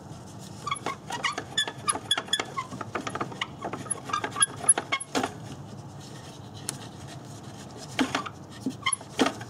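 Radiator cooling fan of a 1994–1997 Honda Accord spun by hand, its motor rattling and clicking as the blades coast: the rattle comes from a bad bearing in the fan. The rattling thins out about halfway through, with a few more clicks near the end.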